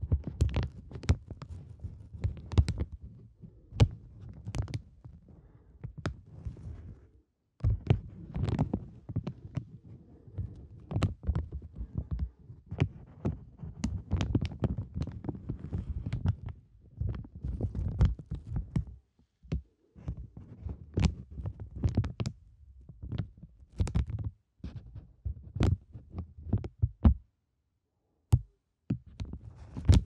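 Clear plastic bags crinkled and squeezed right against the microphone, one at each side, giving dense crackling with dull thumps where the plastic rubs the mic. The crinkling stops briefly three times, about a quarter of the way in, about two-thirds in, and near the end.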